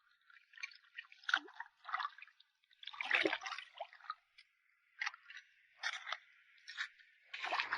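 Irregular wet squelches and small splashes of shallow seawater, about a dozen short sounds, the biggest around three seconds in.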